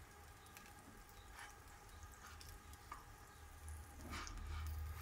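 Bread sandwiches shallow-frying in oil in a pan, giving a faint, steady sizzle with scattered small crackles as they brown. A few brief scrapes come as they are shifted in the pan, over a low steady hum.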